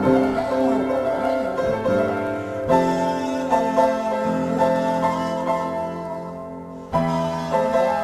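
Solo piano improvisation: full chords struck and left ringing as they slowly fade, with a fresh loud chord struck near the end.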